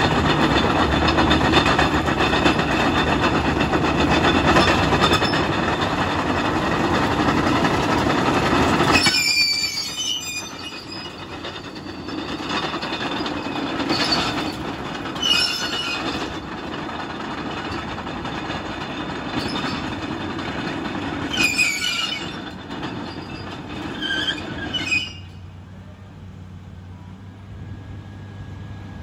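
Caterpillar D6M LGP crawler dozer driving: loud diesel engine and track noise for the first nine seconds or so, then quieter travel with the steel tracks squealing briefly five or six times. Near the end it settles to a low steady engine idle.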